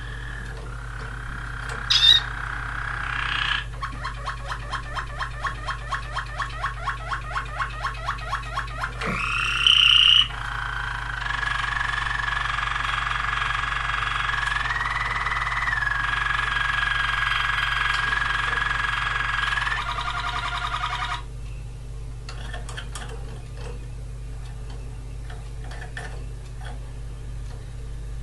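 Waterslager canary singing: a short high note, then a rolling run of quick repeated notes at about four a second, a rising glide about nine seconds in, then a long steady tone that lifts in pitch for a moment and stops about 21 seconds in. Afterwards only faint clicks over a steady low hum.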